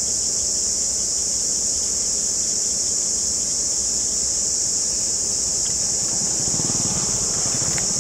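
Steady high-pitched chorus of insects over the low rumble of a D12E diesel locomotive's engine, which grows louder and takes on a quick pulsing beat in the last two seconds as the locomotive draws closer.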